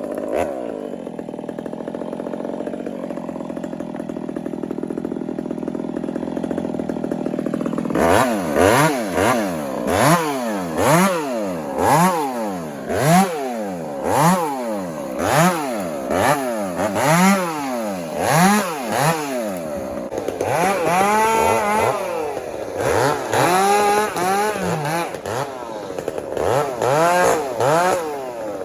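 Gas chainsaw limbing a felled cedar: it runs steadily for several seconds, then is revved up and down about once a second as limb after limb is cut, the pitch rising and falling with each cut.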